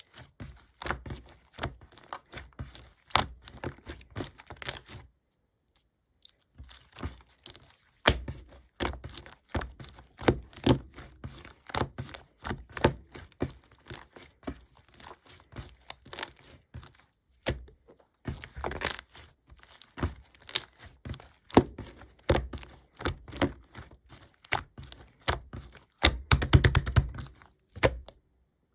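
Close-up handling sounds: a dense run of short clicks, taps and crinkles, broken by a pause of a few seconds early on and ending in a quick flurry of clicks.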